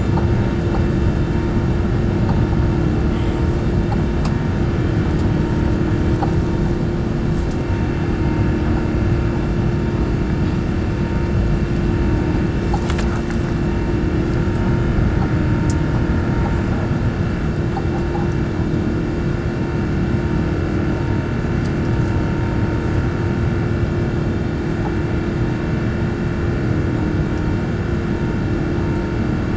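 Airbus A380's Rolls-Royce Trent 900 turbofan engines at high thrust as the aircraft climbs out just after takeoff, heard from inside the cabin over the wing: a steady loud roar with several steady droning fan tones running through it.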